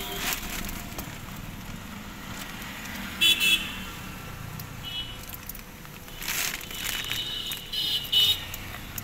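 Plastic sheeting and tape rustling and crinkling as a floor mat is pressed into a car's rear footwell, with brief high squeaks about three seconds in and near the end.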